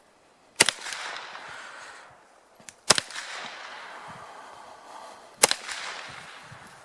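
Three single gunshots about two and a half seconds apart, slow aimed fire at a target. Each shot is followed by an echo that dies away over a second or so.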